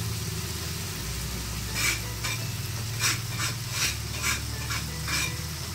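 Ground chili, shallot and garlic paste sizzling in hot oil in a wok, with about eight quick scrapes of a spatula against the wok from about two seconds in as it is stirred.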